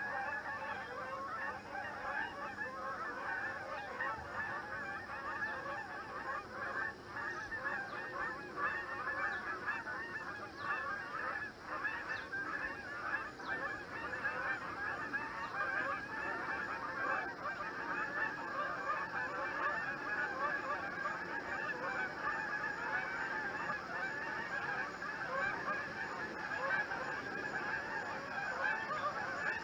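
A flock of Canada geese honking, many calls overlapping in a continuous din.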